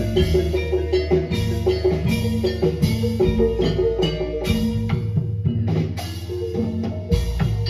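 Live Javanese jaran kepang music: drums beating a dense rhythm under repeated pitched notes from gamelan-style metal percussion, with a heavy bass.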